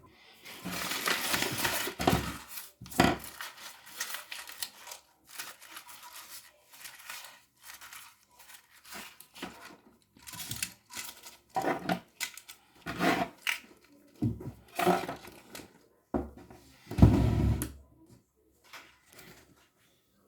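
Irregular rustling, crinkling and knocking as small fidget toys and their plastic packaging are gathered up and put away, with a louder bump near the end.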